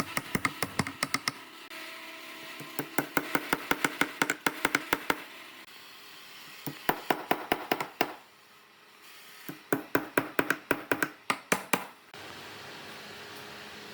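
Quick taps of a tool on wood in four runs of rapid strikes, about five or six a second, with short pauses between the runs. A faint steady hum is left in the last two seconds.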